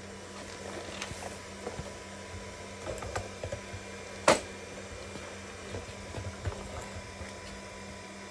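Scattered light clicks and knocks of hands handling small parts, with one sharp click about four seconds in, over a steady background hum.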